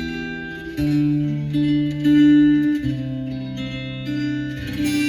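Instrumental guitar passage of a Malay-language pop ballad, played back through a car audio system with Carrozzeria TS-STX510 satellite speakers. Plucked guitar notes ring over held bass notes that change every second or two, with no singing.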